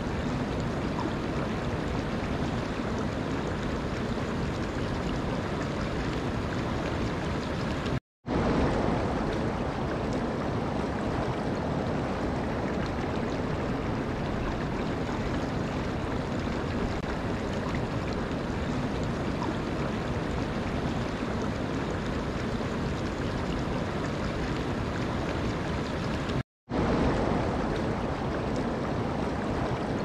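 Shallow stream water flowing and rippling over stones, a steady even rush. The sound cuts out to silence for a split second twice, about eight seconds in and again near the end, then comes straight back.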